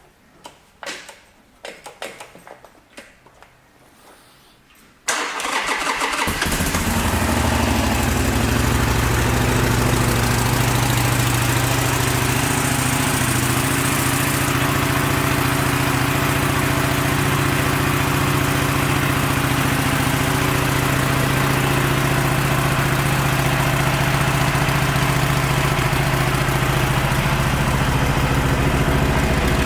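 A few clicks and knocks, then about five seconds in a Harley-Davidson Sportster 883's air-cooled V-twin is cranked by the electric starter, catches at once and settles into a steady idle.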